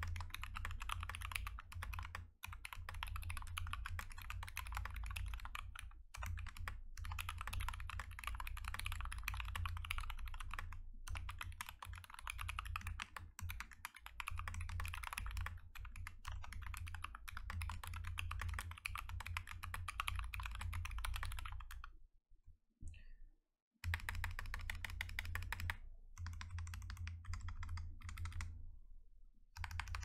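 Fast, continuous typing on a Glorious GMMK TKL mechanical keyboard with lubed Zealios V2 65g tactile switches, PBT keycaps and foam-damped case: a dense stream of keystrokes with short pauses. The typing stops for about two seconds about three-quarters of the way through, then resumes.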